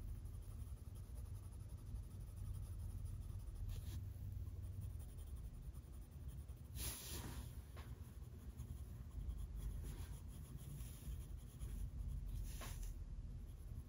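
Faint scratching of colouring strokes on paper while shading in highlights and shadows, over a low steady hum. A few louder strokes come about seven seconds in and again near the end.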